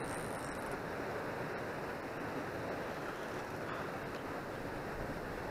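Steady noise of wind and river water at a rocky shore, with wind rumbling on the microphone.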